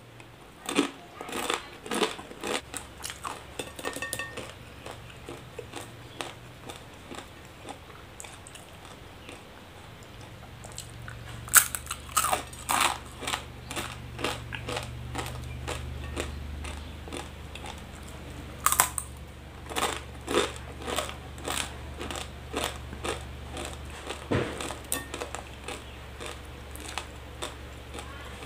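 Dry, uncooked instant noodles being bitten and chewed close to the microphone: bursts of crisp crunching and cracking, with quieter chewing stretches between them.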